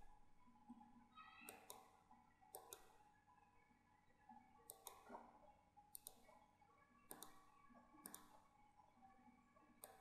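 Faint computer mouse clicks, single and in quick pairs, scattered through near silence.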